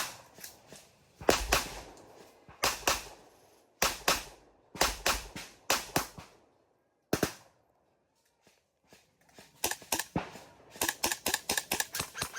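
Airsoft guns firing single sharp shots about once a second, then a pause, then a quick run of rapid clicking shots near the end.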